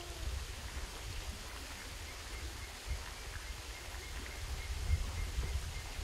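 Forest ambience: a low, fluctuating rumble, and from about two seconds in a faint high call repeating about three times a second.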